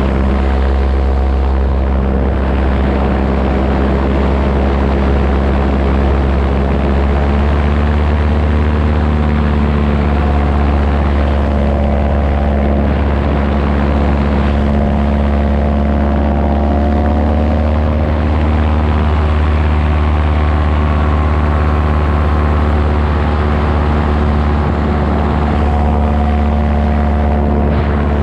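Paramotor engine and propeller running steadily in flight, the engine note wavering slightly in pitch partway through.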